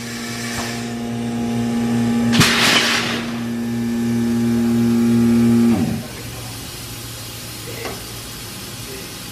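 Labform thermoforming machine cycling: its motor hums steadily, growing louder, then cuts off about six seconds in with a brief drop in pitch. A short burst of air hiss comes about two and a half seconds in, while the mold platen moves down.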